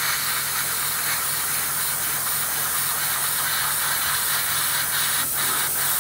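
Gaahleri Ace airbrush with its 0.38 mm nozzle hissing steadily as it sprays paint at about 18–20 PSI, with a faint steady hum underneath.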